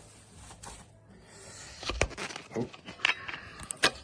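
Cling film being stretched and pressed over a bowl: crinkling rustles and a few sharp clicks and snaps, the loudest just before the end.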